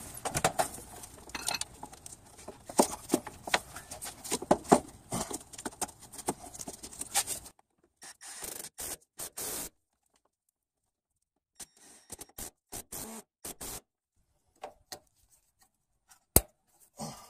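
Hands and a tool working a rubber fuel filler hose onto the tank neck and tightening its worm-gear hose clamp. A dense run of scraping and clicking for about the first seven seconds, then scattered short scrapes and one sharp click near the end.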